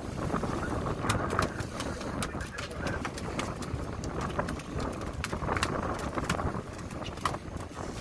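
Fishing boat in a heavy swell: a steady low rumble of wind and water washing along the hull, with frequent sharp clicks and knocks from gear on deck.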